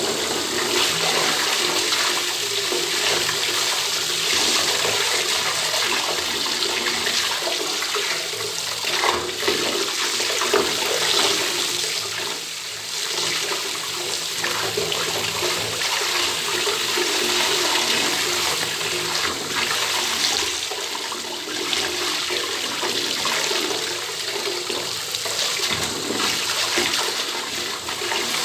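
Bathtub tap turned on, water pouring steadily into the tub.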